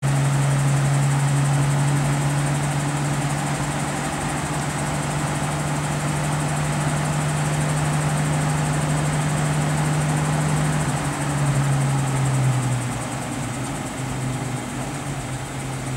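Heavy vehicle engine idling steadily with a low, even hum that dips slightly in pitch about twelve seconds in.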